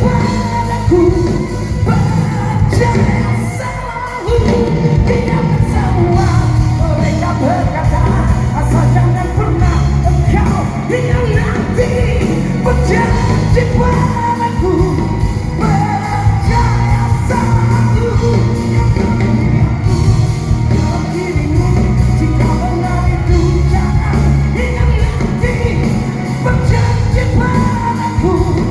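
Rock band playing live, a lead vocalist singing over bass, drums and guitars.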